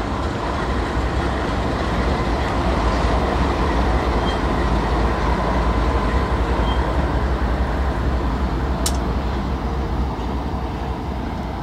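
BNSF GE ES44C4 diesel locomotive passing close by: a steady low engine rumble with wheel and rail noise, and a single sharp click about nine seconds in.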